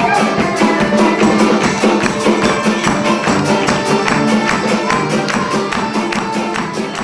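Background music with a steady beat, fading out gradually over the last few seconds.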